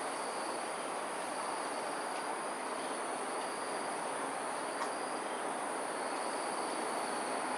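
Evening insect chorus: a steady high-pitched trill held at one pitch, over a continuous rushing background hum.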